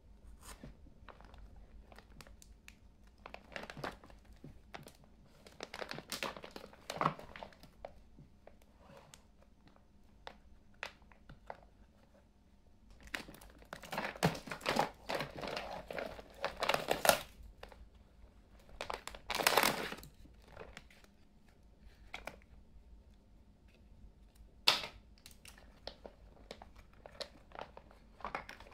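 Thin clear plastic packaging bag crinkling in irregular bursts as it is handled and opened around hard plastic toy tea-set pieces, the busiest stretch in the middle, with one sharp click later on.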